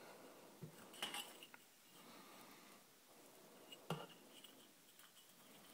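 Near silence, broken by a few faint clicks and taps as hands handle a small ESC and its wires; the sharpest tap comes about four seconds in.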